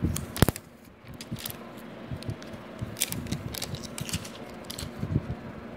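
Thin plastic protective film being peeled off and handled on an Apple TV 4th generation's casing, crackling in short irregular bursts, with two sharp clicks about half a second in as the loudest sounds.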